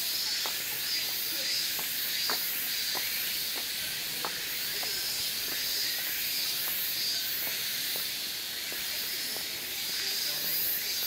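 A steady high hiss that swells and fades every second or so, with soft footsteps at a walking pace, about three steps every two seconds.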